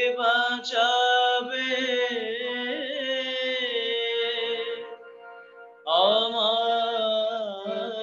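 A man singing a devotional bhajan, holding long, ornamented notes in two phrases with a short break about five seconds in. A faint steady drone sounds underneath.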